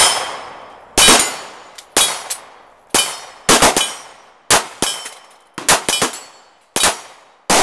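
Intro sound effects: a run of sharp impacts, each with a ringing metallic decay, at first about one a second and then coming closer together.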